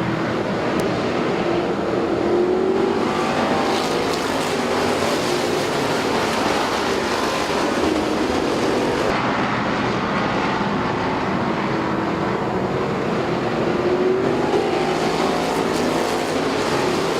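A field of street stock race cars running laps together, their engines sounding continuously with pitch rising and falling as cars go by.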